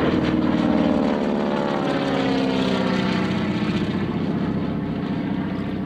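Val dive-bomber replica, a modified BT-13 with a Pratt & Whitney R-985 radial engine, flying past. Its engine and propeller note drops in pitch as it goes by, then slowly fades.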